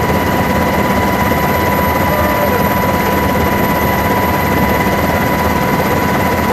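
Helicopter rotor and turbine noise heard from on board: a steady low rumble with a constant high whine over it.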